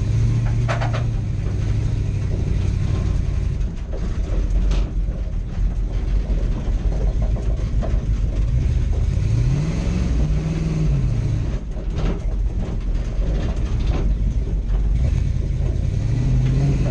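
A motor running steadily with a low hum, its pitch rising and falling a few times, with a few short clicks.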